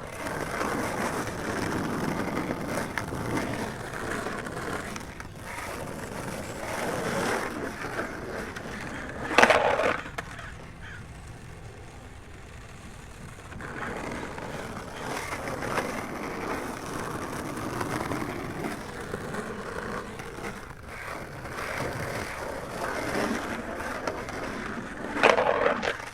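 Outdoor city ambience: a rolling, scraping noise that swells and fades, with two loud sharp clacks, one about ten seconds in and one near the end.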